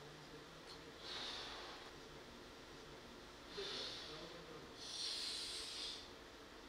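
A person breathing out heavily three times, each breath a hissy rush lasting about a second, with no music.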